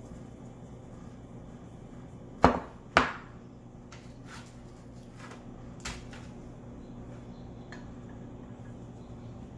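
Two sharp metal knocks about half a second apart, then several lighter taps and clinks: cookware being handled on a kitchen counter, the wire rack, sheet pan and beer-can chicken stand. A steady low hum runs underneath.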